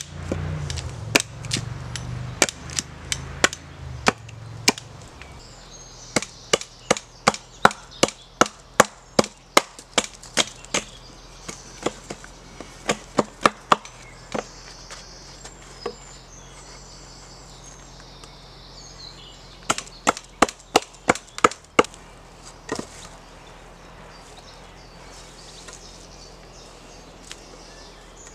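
Axe blows chopping into dead wood, sharp hits coming about two a second in several runs.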